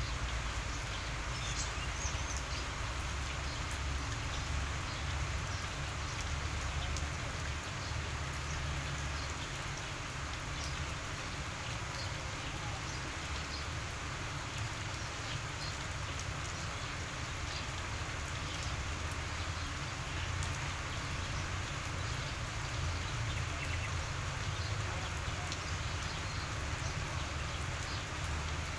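Steady outdoor background noise: a constant, even hiss with faint scattered ticks, over a low rumble that swells and fades unevenly.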